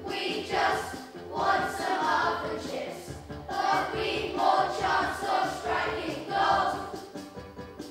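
A group of children singing a song together, in phrases about a second long, over a steady musical accompaniment.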